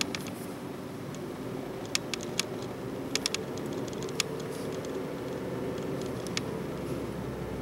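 Steady road and engine noise inside a Chevrolet Spark's cabin while driving, with a scatter of sharp short clicks, several close together between about two and three and a half seconds in.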